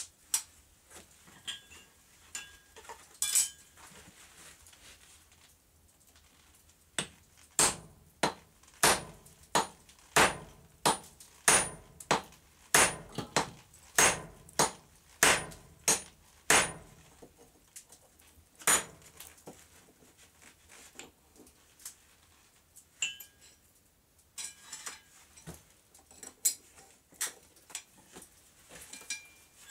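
Hand hammer striking a punch driven into glowing railroad-spike steel on a railroad-rail anvil, to open the axe's eye: sharp metallic strikes with a high ring. A few scattered blows come first, then a steady run of about fifteen blows, a little under two a second, then a few scattered ones again.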